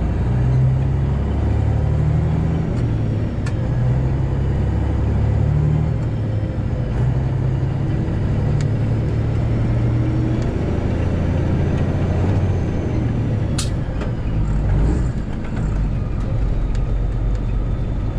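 Semi truck's diesel engine running under way, heard from inside the cab, a steady low drone whose pitch rises and falls a few times. A single sharp click about two-thirds of the way through.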